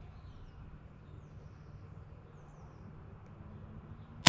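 Quiet farm-shed ambience with a few faint, short bird chirps, then at the very end the sudden sharp crack of an air rifle shot.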